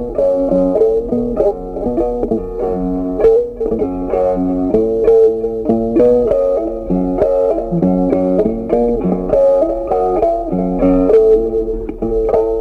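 Instrumental background music with a plucked melody, one note following another every fraction of a second.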